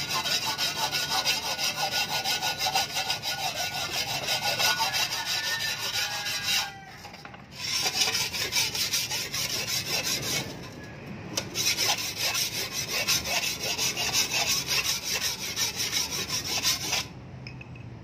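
Hand sharpening stone scraped in quick back-and-forth strokes along the steel edge of a shovel blade, a steady rasping grind. It pauses twice for about a second and stops about a second before the end.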